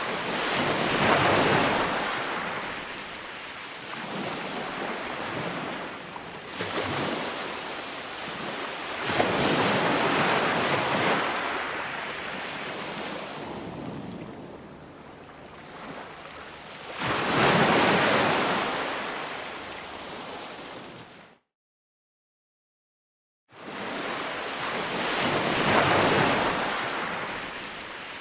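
Ocean waves breaking and washing in, in big surges of rushing noise that swell and ebb every several seconds. About 21 seconds in, the sound cuts out to dead silence for two seconds, then a new wash of surf comes back in.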